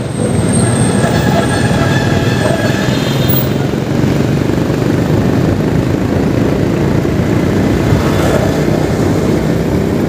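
Motorcycle riding along a busy city road: the steady drone of its engine mixed with road and wind noise and surrounding traffic, with a faint higher tone in the first few seconds.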